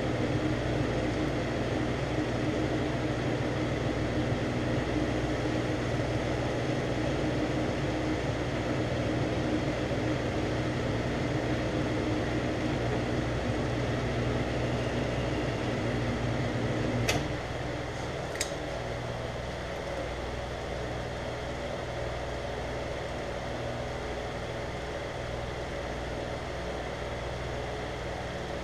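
Metal lathe running steadily while turning Delrin stock. A little past halfway there are two sharp clicks about a second apart, and the running drops to a quieter steady hum.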